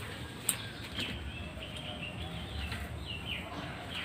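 Small birds chirping repeatedly in short, quick calls. There is one sharp click or knock about half a second in.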